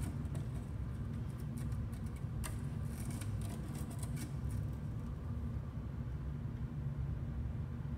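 A steady low hum, with a scatter of light clicks and rustles from a hand handling a stiff black display board in the first half, which stop about four and a half seconds in.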